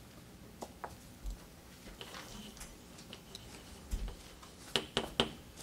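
Scattered light ticks and taps from a marker working on a board as a figure is drawn, ending with three quick sharp taps.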